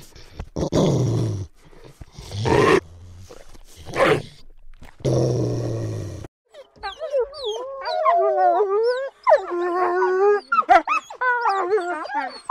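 Canine sound effect: several rough growls and snarls in the first six seconds, then high whining and whimpering that slides up and down in pitch.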